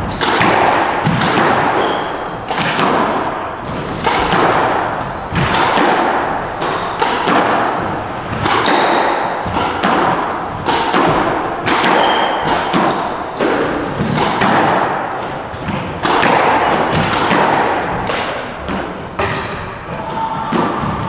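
Squash rally: the ball is struck by rackets and smacks off the court walls in an irregular series of sharp hits, roughly one or two a second, echoing in the enclosed court, with short high squeaks of court shoes on the floor between them.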